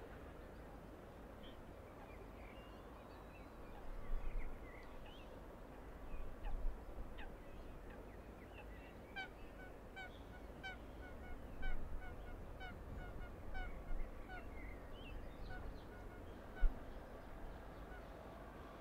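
Geese honking in a run of short, evenly repeated calls, about two a second, through the middle of the stretch. Scattered small-bird chirps and a few low bumps sit over a steady low background noise.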